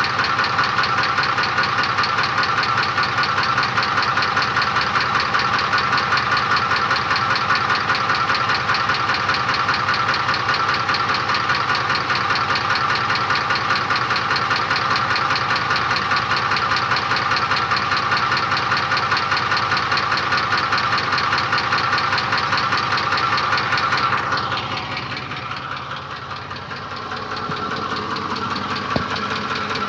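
Ford 5.4 Triton three-valve V8 idling with a fast, even knock running through it, the knock the owner is trying to track down. The sound gets quieter for a few seconds about three-quarters of the way through, then comes back up.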